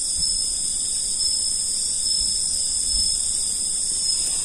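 Steady, high-pitched chorus of night insects, unbroken throughout.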